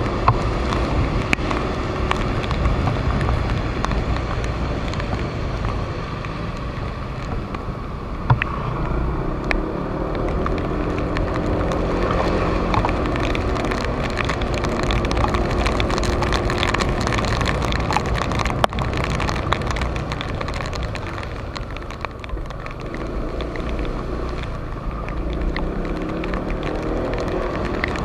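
Honda PCX150 scooter's single-cylinder engine running while riding, with tyre noise on a rain-wet road. The engine note rises and falls a few times as the throttle changes.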